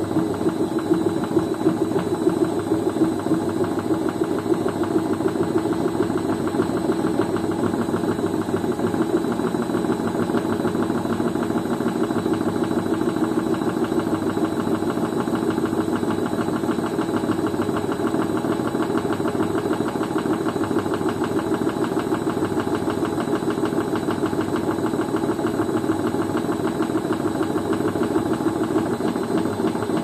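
Beko front-loading washing machine spinning its drum at a steady speed: a constant mechanical hum from the motor and drum, unchanging throughout.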